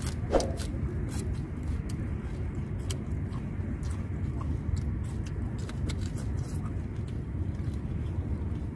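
Close-miked chewing and crunching of raw leafy greens and chicken offal, with many small crisp clicks, over a steady low rumble.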